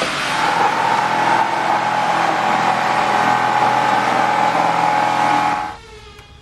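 A handheld electric power tool running steadily with a high whine and a hissing, grinding noise, switched off near the end.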